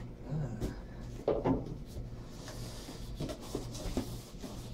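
Cardboard shipping box being opened by hand: the flaps are pulled back with rubbing and rustling of cardboard and a few light knocks and clicks.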